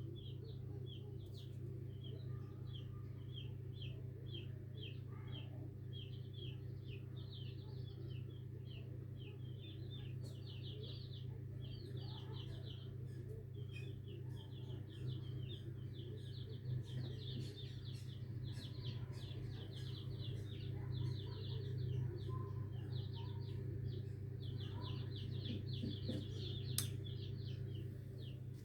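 Chicks peeping inside an egg hatcher, in quick runs of short high chirps, over a steady low hum.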